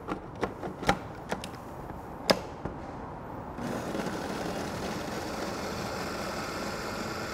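A few sharp clicks and knocks, then about three and a half seconds in a small food processor motor starts and runs steadily, chopping garlic cloves with coarse salt.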